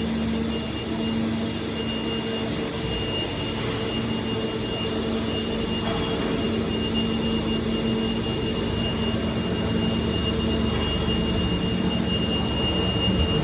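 Automatic fitting-production machinery running on a factory floor: a steady hum with a constant high whine over a noisy background.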